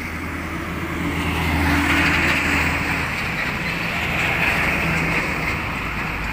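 A large tanker truck's diesel engine and tyres pass close by on the road. The sound builds to its loudest about two seconds in, and further road traffic keeps going afterwards.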